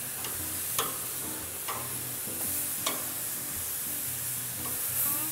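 Marinated beef short ribs sizzling on a hot grill, with a few sharp clicks of metal tongs against the grate as the ribs are turned.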